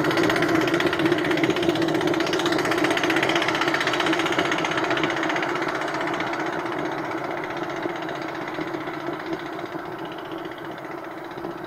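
Homemade steam motorcycle's steam engine chuffing rapidly and evenly as it rides away, fading steadily.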